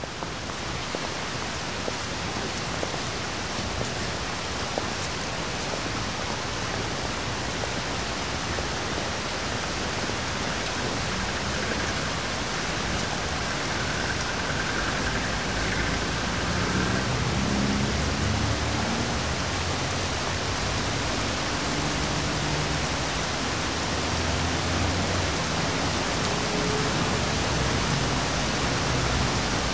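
Steady rain, an even hiss that grows slowly louder, with faint low drones coming through in the second half.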